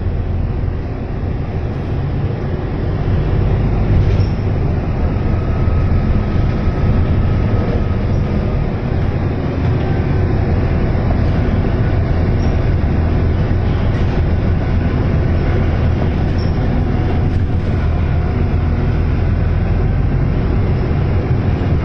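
Cabin sound of a Volvo B9TL double-decker bus under way: its 9.4-litre six-cylinder diesel engine runs with a steady low drone over road noise. The drone grows louder over the first few seconds as the bus gathers speed, then holds steady.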